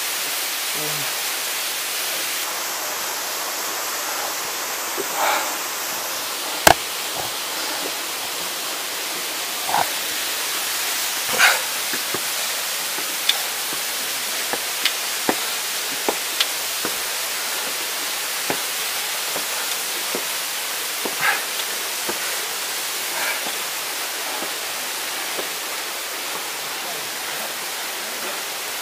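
Steady rushing noise of running water, with occasional short faint sounds and clicks on top, including a sharp knock a little over six seconds in.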